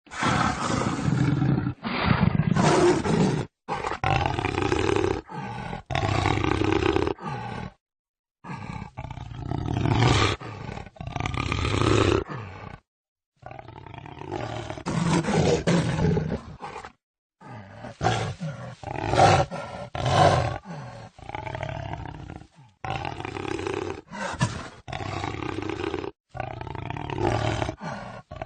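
Jaguar roaring over and over, call after call, with abrupt cuts and a few brief silent gaps between clips.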